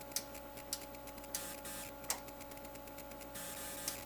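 Irregular sharp clicks from the selector knobs and switches of bench test equipment being turned, with short rustling between them, over a steady faint electrical hum.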